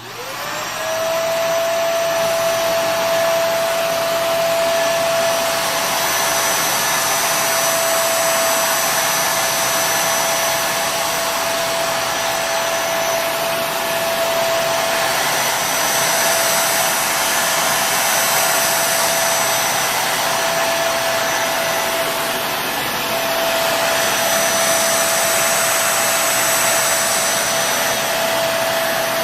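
Kenmore Intuition bagless upright vacuum cleaner, Panasonic-built, switched on: its motor spins up within about a second and then runs steadily, a constant whine over a rush of air.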